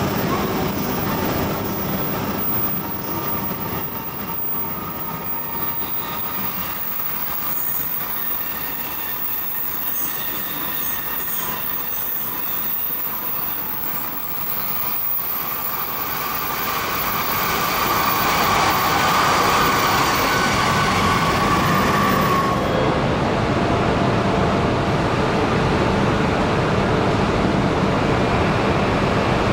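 Shinkansen bullet trains running slowly through a station, with a steady rumble of wheels on rails and motor noise. A high whine builds about two-thirds of the way through and cuts off suddenly, and after that the rumble of another approaching train continues.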